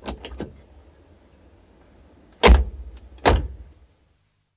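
The doors of a Ford Cortina 1600 two-door car, heard from outside: a few quick clicks at the start, then two solid door slams a little under a second apart, about two and a half seconds in.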